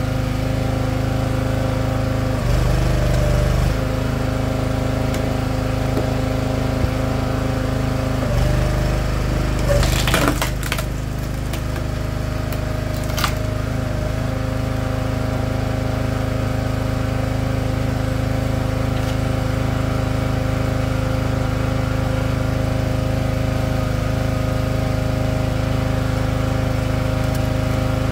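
Split-fire 2265 log splitter's small gas engine running steadily, growing louder twice as it takes load. About ten seconds in a log cracks apart with a quick run of sharp cracks, and one more sharp crack follows a few seconds later.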